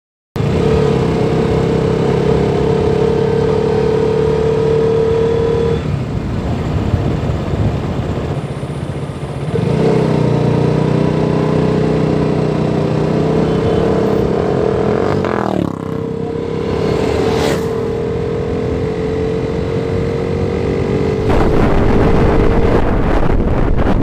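KTM RC motorcycle's single-cylinder engine running while riding, its note holding or slowly climbing and shifting a few times. It dips and picks up again about fifteen seconds in and gets louder near the end.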